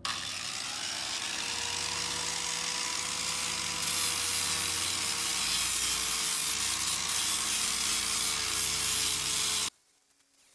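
Electric angle grinder with a sanding disc running against steel frame tubing, a steady motor whine over rough rubbing noise, scuffing the metal clean for primer. It gets louder about four seconds in and cuts off abruptly near the end.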